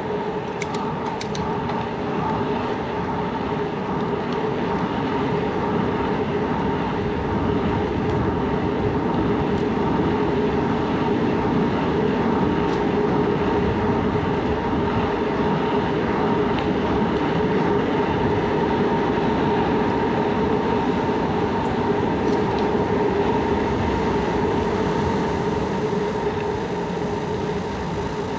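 Steady rolling noise of a Surly Bridge Club bicycle on the move: a constant rumble with a steady hum running through it, as the tyres roll on pavement. A few faint ticks about a second in.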